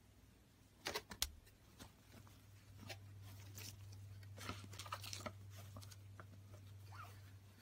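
Hands handling and laying out fabric face masks and their plastic packaging: a few sharp clicks about a second in, then soft, irregular rustling, with a faint low hum underneath from a few seconds in.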